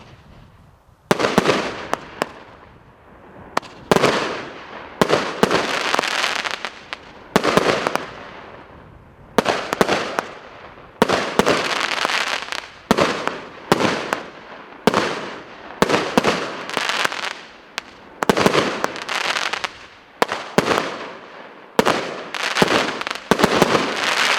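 A 15-shot consumer firework battery ("Firebird" cake) firing its shots one after another, roughly one every second or so, each a sharp report followed by a second or so of dense crackling that fades.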